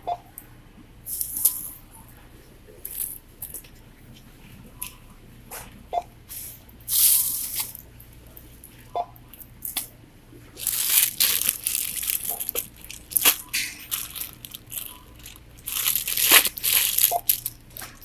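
Thin plastic grocery bags rustling and crinkling in irregular bursts as items are scanned and packed at a self-checkout, with clicks and knocks of items handled and set down, and a few short beeps.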